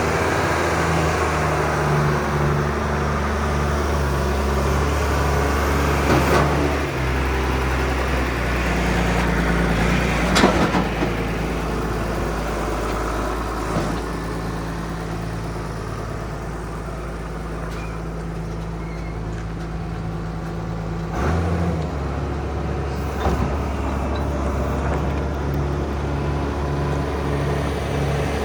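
The 115 hp diesel engine of a John Deere 710D loader backhoe running steadily. Its note shifts about a third of the way in and again near the end, with a few short knocks along the way.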